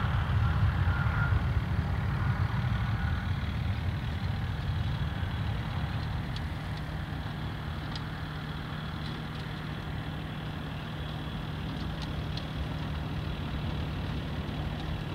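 QantasLink Airbus A320's twin jet engines at takeoff thrust, loudest at the start and fading over the first several seconds as the airliner climbs away. A steady low hum carries on underneath once the climb-out noise has faded.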